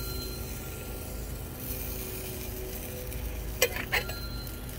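A basting brush knocking against a small metal sauce cup: a couple of light clinks near the end, over a steady low background rumble.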